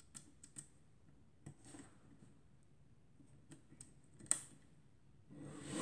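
Faint clicks of a Compur leaf shutter on a folding plate camera, set and tripped by hand while its slow speeds are tested. A few small clicks come first, then a sharper click about four seconds in, and a short burst of handling noise near the end.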